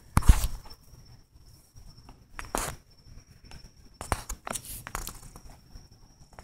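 Scuffs, rustles and clicks close to the microphone as a cat moves right up against the phone, loudest as a sharp knock near the start, with more rustling about two and a half seconds in and again around four to five seconds in. A steady high insect trill, like a cricket, runs underneath.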